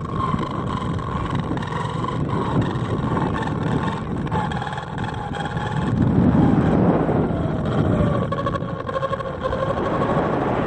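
Wind buffeting the microphones of a 360 camera on a rising high-altitude balloon payload, a steady rumble that swells about six seconds in, with faint wavering whistling tones over it.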